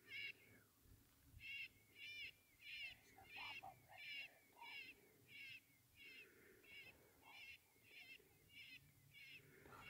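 Faint, high, wavering animal-like call repeated steadily about every 0.6 seconds, some fifteen times. It is strongest in the first half and weakens toward the end, with a few lower notes mixed in around the middle.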